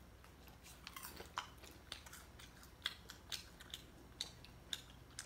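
Faint, irregular crunching of caramel popcorn being chewed.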